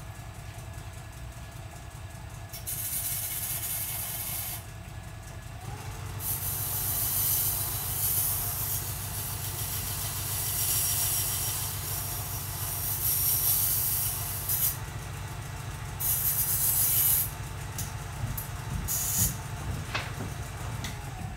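Belt grinder running, with long stretches of hissing grind each time a piece of the metal colander is pressed to the belt, broken by quieter gaps. The motor's pitch steps up about six seconds in.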